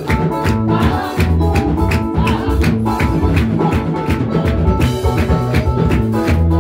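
Loud upbeat music with a steady beat and a strong bass line.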